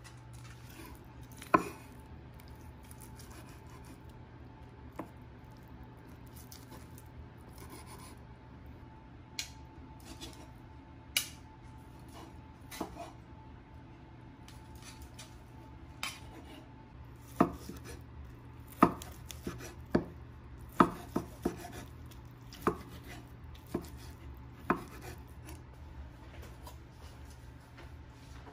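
Chef's knife chopping cooked chicken on a wooden cutting board: irregular knocks of the blade striking the board, sparse at first and coming in quick runs in the second half, over a low steady hum.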